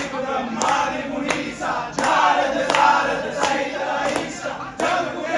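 Many voices singing together in chorus over music with a steady beat, played through a TV's speakers.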